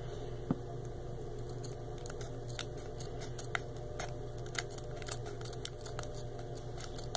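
Scissors snipping across the top of a Pokémon card booster pack's foil wrapper: short, irregular snips and clicks, about two a second.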